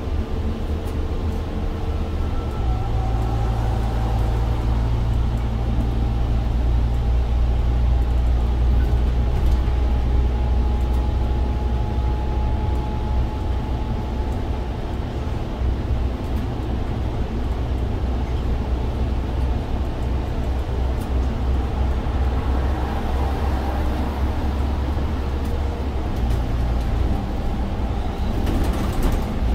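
Interior of a Scania OmniLink bogie bus driving at speed: the biodiesel engine's low steady drone together with road and tyre noise, heard inside the passenger cabin. The drone grows louder a couple of seconds in, with a faint whine above it for a while.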